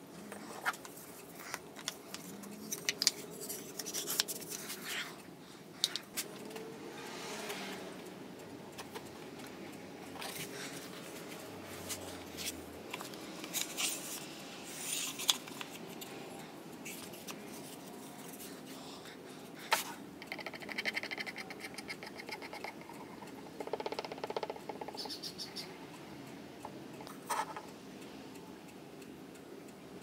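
Scattered light clicks, taps and scrapes of small objects being handled, with a short buzzing rattle about two-thirds of the way in.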